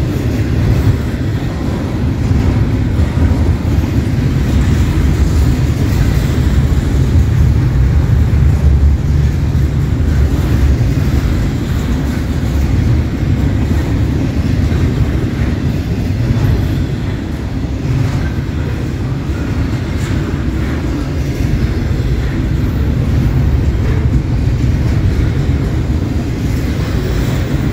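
Double-stack intermodal freight train rolling past close by: a steady, loud rumble of steel wheels on the rails from the container-laden well cars.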